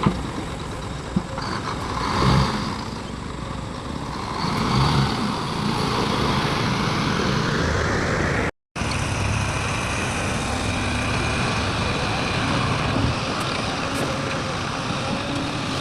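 Heavy diesel engines running, swelling in level a few times. The sound drops out for a moment a little past halfway, then the running resumes.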